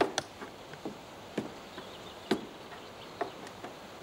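A few sharp, short knocks at uneven intervals, roughly a second apart, over a faint quiet background.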